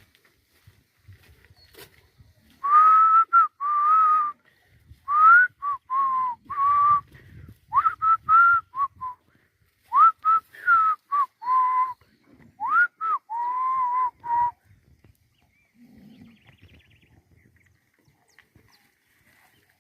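A person whistling a run of loud calls to cattle: about a dozen short notes, many opening with a quick upward swoop and then held, in groups from about three seconds in until near the end.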